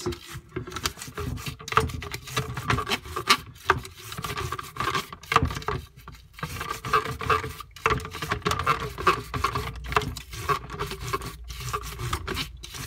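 Small stiff brush scrubbing the holes of a Dyson DC41's plastic cyclone part, in quick back-and-forth rasping strokes of bristles on plastic, to clean dust out of them.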